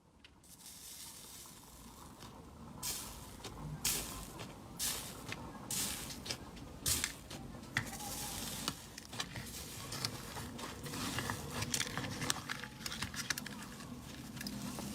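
Slime being squished and worked by hand, with irregular sticky pops and crackles a few times a second, growing denser near the end.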